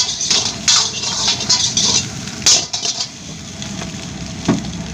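A metal spatula scraping and clattering against a pan of fried rice in a quick, irregular series of strokes.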